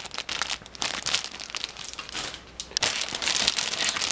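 Clear plastic bags holding plastic model-kit runners crinkling and crackling as they are handled. It is a dense run of sharp crackles that thins a little about halfway through, then picks up again.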